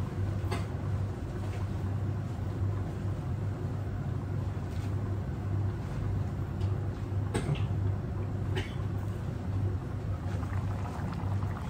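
Steady low rumble of a gas burner under a glass-lidded pan of coconut-cream stew at a simmer, with a few scattered small ticks and pops from the pot.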